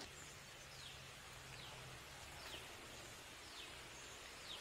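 Faint bird calls: a short high note falling in pitch, repeated about once a second over a soft background hiss.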